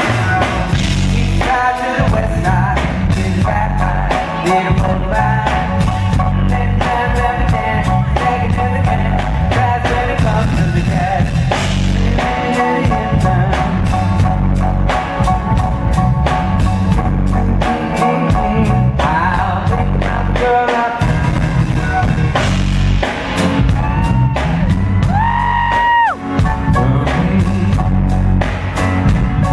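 Live band playing at full volume through a PA: drum kit, bass and guitar, with a sung vocal line over the top. Near the end a held note bends up and falls away again.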